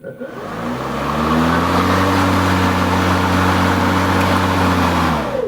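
Ryobi brushless electric push mower motor and blade spinning up with a rising whine, running at a steady hum for about four seconds, then winding down quickly near the end. It is started by pulling back the safety switch.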